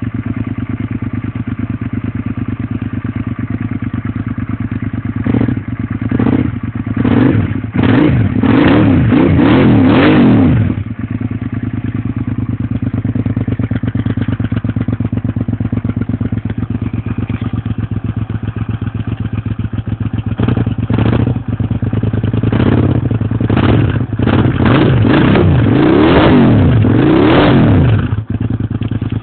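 2001 Suzuki SV650S's 90-degree V-twin running through a full Yoshimura TRS exhaust, with a desnorkeled airbox and rejetted carburettors. It idles steadily, is blipped in a run of quick revs about five seconds in, settles back to idle, then is revved again in a second run from about twenty seconds in before dropping back to idle.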